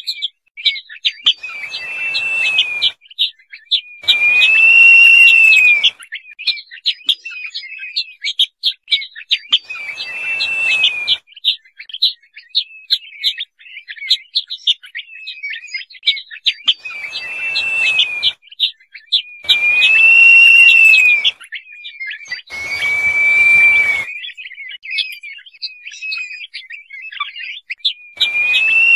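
Crested partridge (roul-roul) giving its whistled call: a clear whistle that rises and falls, about one to two seconds long, repeated about seven times. A dense run of short high chirps fills the gaps between the whistles.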